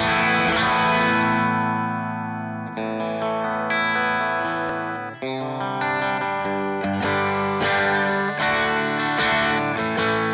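Shergold Masquerader SM02-SD electric guitar on a crunch (light overdrive) tone, its bridge Seymour Duncan TB-4 humbucker coil-split to single-coil. A strummed chord rings for nearly three seconds, then a run of further chords is played, changing about once a second.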